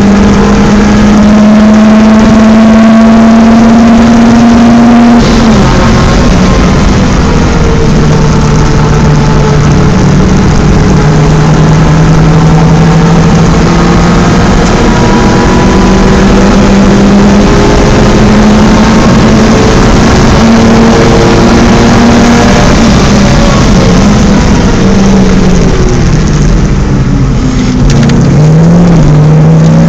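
BMW 318is four-cylinder engine running hard on track: revs climb, drop at an upshift about five seconds in, then hold high for a long stretch. Near the end the revs fall away with downshifts under braking and start climbing again.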